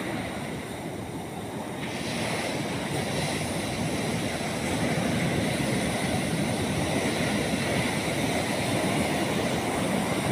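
Ocean surf breaking on the beach: a steady rushing wash that swells louder about two seconds in, with wind buffeting the microphone.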